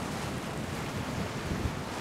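A steady rush of wind and sea waves, rumbling in the low end.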